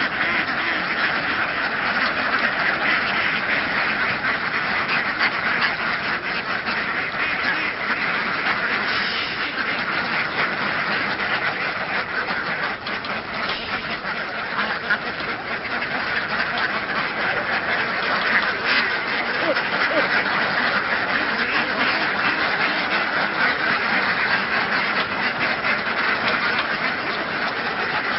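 A large flock of domestic laying ducks quacking continuously, with many calls overlapping and no break.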